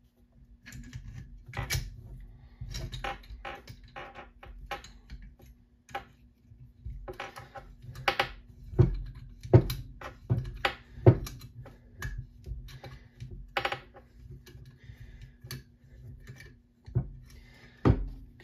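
Irregular metal clicks and clinks of a valve spring compressor being fitted and worked on a 1943 Gravely Model L cast-iron cylinder, compressing an exhaust valve spring to free the keepers. A run of louder knocks comes around the middle, with one more near the end.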